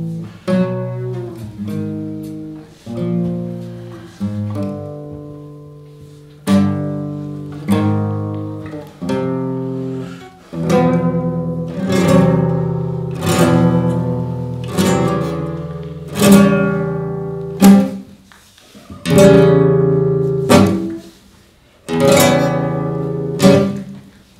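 Acoustic guitar strummed in slow chords, each one left to ring and fade before the next. The playing grows louder about ten seconds in.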